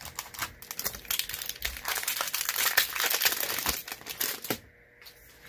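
Foil wrapper of a Magic: The Gathering set booster pack crinkling and crackling as it is handled and torn open, stopping about four and a half seconds in.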